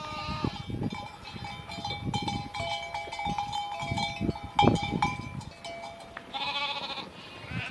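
A flock of sheep and goats bleating as the herd moves along, with a wavering bleat near the end.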